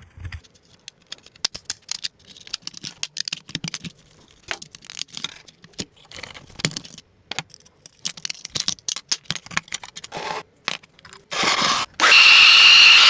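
Hands-on work stripping a car: a run of irregular scrapes, tearing and sharp clicks. Near the end a loud, steady hissing noise with a high whine cuts in.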